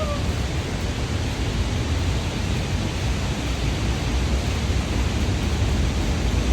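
Large waterfall pouring steadily, a loud, even rush of water with a deep low rumble; it is running unusually full and powerful after days of heavy rain.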